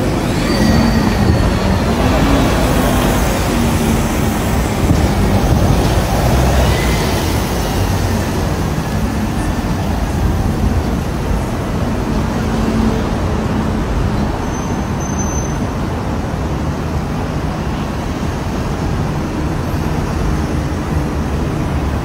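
Steady roadside traffic noise from city buses and cars on a busy multi-lane road, a continuous rumble without pauses.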